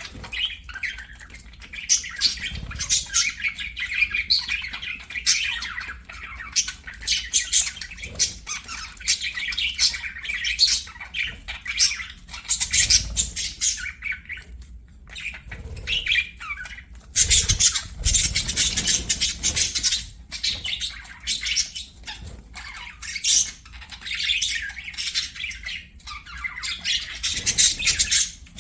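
Several budgerigars chattering and warbling continuously, with frequent short, sharp squawks and chirps.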